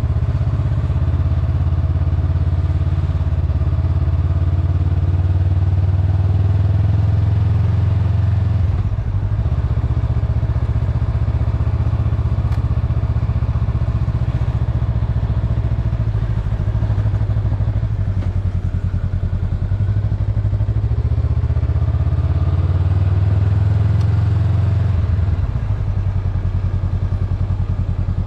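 Honda Rebel 500's 471 cc parallel-twin engine running at low road speed, heard from the rider's seat; the sound eases briefly about nine seconds in and again near the end.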